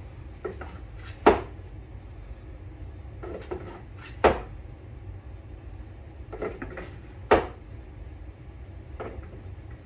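A utensil knocking against a glass bowl of icing while icing is scooped out: three sharp clinks about three seconds apart, with softer taps and scrapes between, over a low steady hum.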